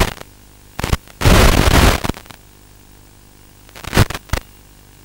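Several sudden bursts of hiss-like radio static from an analog FPV video link breaking up, the longest lasting about three-quarters of a second, over a faint steady background hum.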